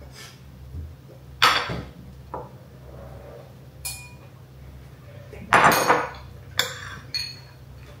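Dishes and utensils clattering: about six sharp clinks and knocks, some ringing briefly, the loudest a longer clatter about five and a half seconds in. A steady low hum runs underneath.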